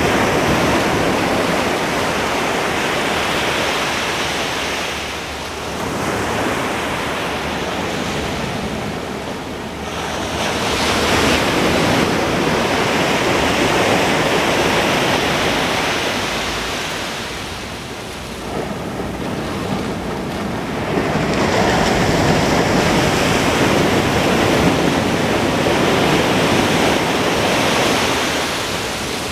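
Ocean surf breaking on a beach: big waves crash about ten seconds apart, three times, each a loud rush of noise that swells and then slowly ebbs, with a smaller wave between the first two.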